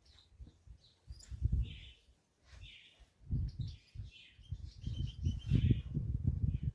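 Small birds chirping in short calls, over irregular low rumbling bursts of noise that are loudest towards the end.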